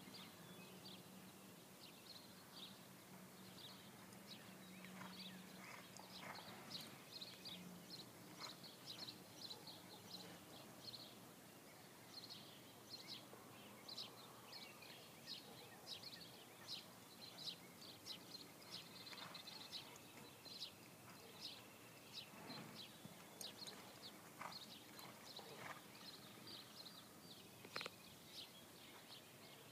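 Faint birdsong: quick high chirps repeating over and over, with a few soft thumps.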